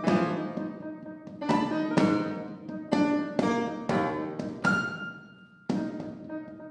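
Piano and percussion duo playing contemporary concert music: about eight sharp, accented struck chords and drum strokes, each left to ring and die away. The sound fades almost to nothing before one last strike near the end.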